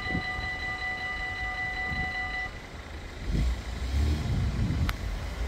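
Dutch level-crossing warning bell ringing steadily as the half barriers rise, stopping about halfway through. Then a road vehicle's engine rumbles as traffic moves off, with a sharp click near the end.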